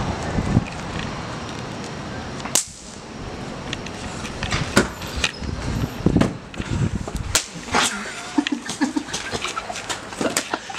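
Wind buffeting the microphone while a person runs. Then, after a sudden cut about two and a half seconds in, a scuffle between two people in a small room: scattered knocks and thumps with a few short grunts.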